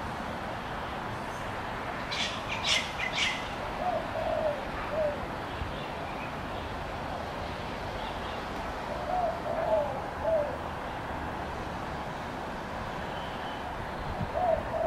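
A bird calling outdoors: short, low, arched notes in small groups, repeated several times. About two seconds in, there are three short scratchy sounds.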